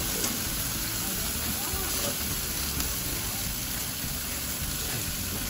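Barbecue chicken sizzling on a gas grill over open flame: a steady hiss, with a low rumble underneath.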